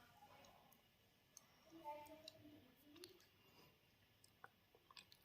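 Near silence with a few faint, scattered key clicks from a retro typewriter-style Bluetooth keyboard being handled and pressed, and a faint low hum of a voice in the middle.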